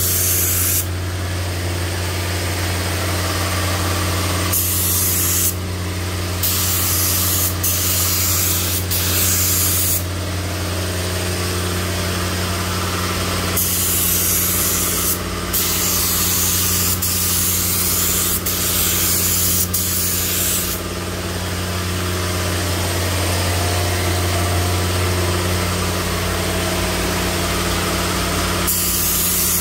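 Gravity-feed paint spray gun hissing as paint is sprayed in passes of a few seconds each, the hiss stopping and starting as the trigger is pulled and let go, over a steady low hum.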